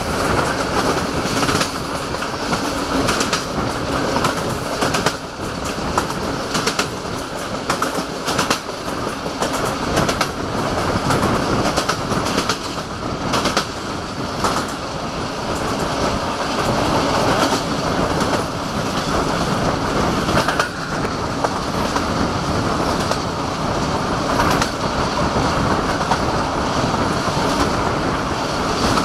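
Passenger train coach running at speed, its wheels clicking over rail joints at uneven intervals over a steady rumble and rush of air, heard at an open coach window.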